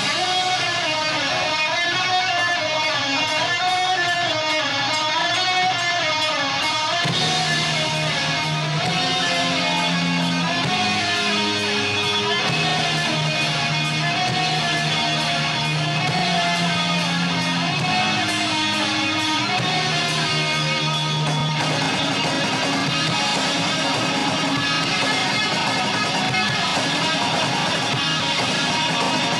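Live heavy metal band playing: distorted electric guitars over bass and drums. A bending, wavering lead line for the first several seconds gives way to a riff over held low notes, and the band turns denser and fuller about three-quarters of the way through.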